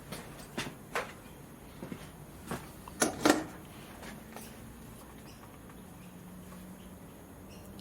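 Small metal parts and hand tools being handled while a gas jet fitting is worked: a scatter of light clicks and knocks, the two sharpest close together about three seconds in. After that there is only a faint steady hum.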